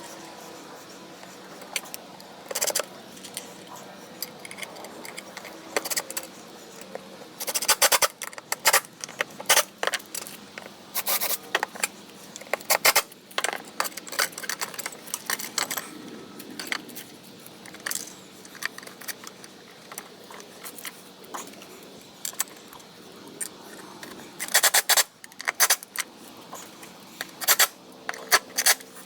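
Metal screws and hardware clinking and rattling in irregular clusters of sharp clicks as screws are put into a wooden table top.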